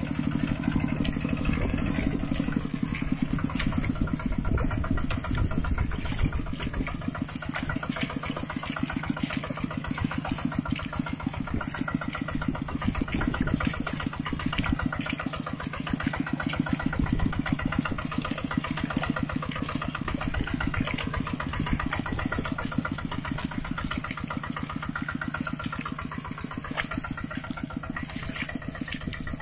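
Mini tractor's engine running steadily with a fast, even chug.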